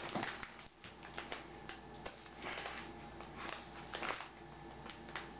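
Brown paper parcel wrapping crackling and rustling as it is handled and cut open with scissors, a dense run of short crinkles and light clicks.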